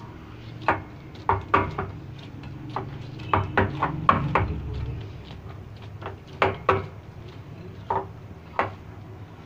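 Hands kneading soft bread dough in a glass bowl: irregular knocks and taps as the dough is pressed and slapped and the bowl shifts, over a low steady hum.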